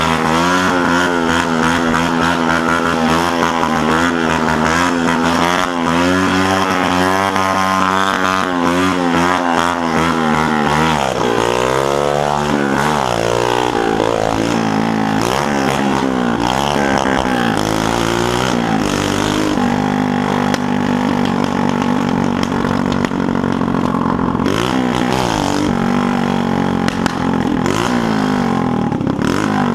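Two-stroke Mobylette-type moped engine singing at high revs with a wavering pitch, then blipping up and down in several quick rev-and-release swells about halfway through and again near the end. The engine has just been rebuilt.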